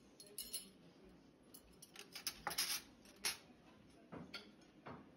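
Forks and spoons clinking and scraping on china plates in scattered light clicks, with a cluster of sharper clinks about two to three seconds in.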